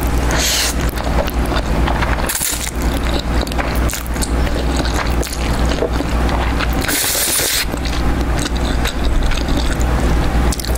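Close-miked eating of jjajangmyeon: wet noodle slurps and chewing, with a brighter hissy slurp about seven seconds in, over a steady low rumble.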